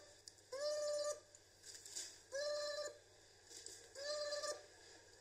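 A series of short tones, each held at one steady pitch for about half a second. They repeat at uneven gaps of one to two seconds, four times.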